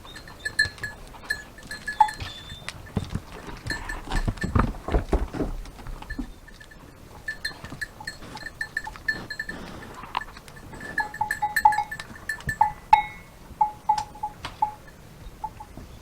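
Goat bells clinking again and again as goats move about, one higher-pitched bell throughout and a lower-pitched bell joining from about eleven seconds in, among scattered knocks and a brief low rumble about four seconds in.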